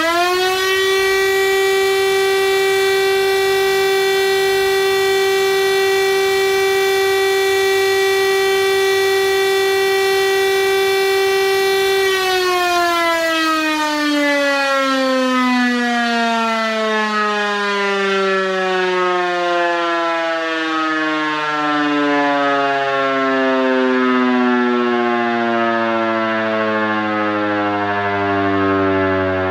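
Siemens Fm Si 41 electromechanical air-raid siren sounding the "Probe" test signal: a steady tone held for about twelve seconds. It is then switched off and winds down, its pitch falling slowly as the rotor coasts, and it is still sounding at the end.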